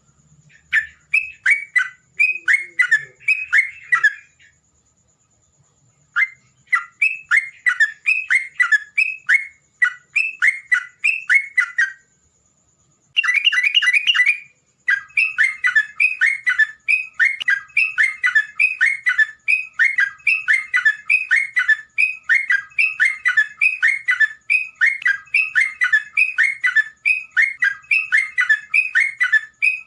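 Terocok bird singing its chattering 'borak barik borok cikrok' song: a fast, even run of down-slurred notes, about three to four a second, in long bursts broken by short pauses.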